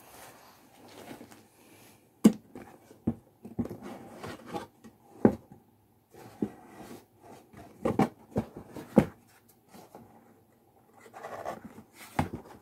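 Folded cardstock paper mask being handled: rustling and crinkling of stiff paper with irregular sharp taps and knocks as the pieces are pressed and stuck together.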